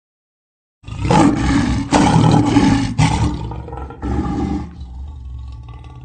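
Lion roaring: four loud, rough roars about a second apart, starting abruptly about a second in, then quieter sounds that fade near the end.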